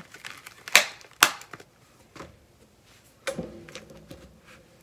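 Paper craft pieces handled on a cutting mat: two sharp taps about a second in, half a second apart, then light paper rustling and small ticks as the layered pieces are pressed down by hand.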